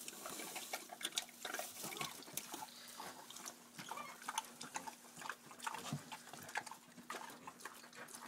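Potbellied pig chewing and smacking its food: a run of irregular wet clicks and smacks.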